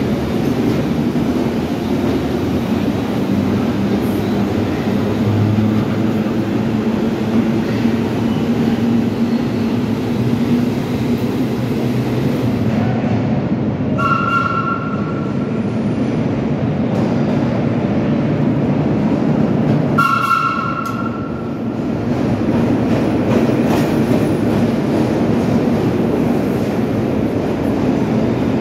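Vintage R1/R9 subway cars rumbling along the track in a steady low roar. Midway through, an approaching train sounds two short horn blasts a few seconds apart, the second slightly longer, then rolls into the station.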